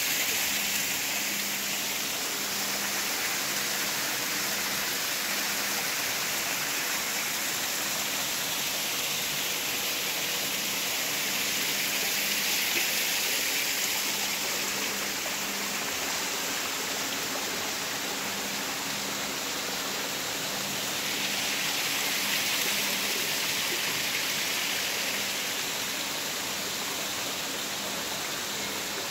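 Steady rush of running water, swelling slightly twice, with a faint low hum underneath.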